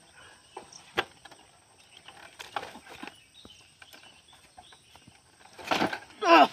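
Sounds of a person straining under a heavy lift: a sharp knock about a second in, a loud forceful breath near the end, then a short loud vocal cry that falls in pitch.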